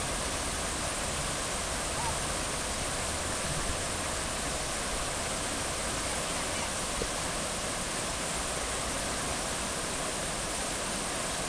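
River rapids rushing steadily over bedrock: a continuous roar of whitewater.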